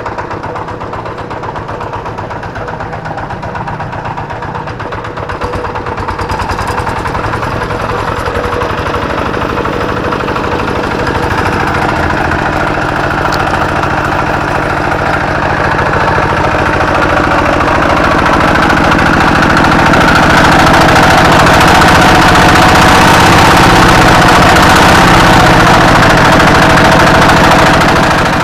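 Kubota RD85DI-1S single-cylinder diesel on a hand tractor, running rough and harsh, growing louder over the span. The rough sound comes from a worn flywheel bearing.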